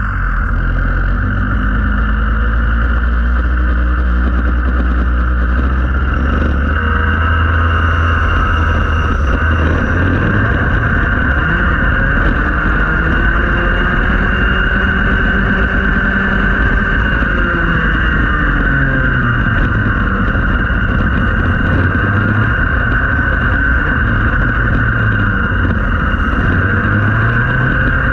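Rotax Max 125cc single-cylinder two-stroke kart engine heard on board: it starts at low revs, then climbs about six seconds in to near 11,000 rpm on the straight, and its pitch keeps falling and rising as it slows for corners and accelerates out of them.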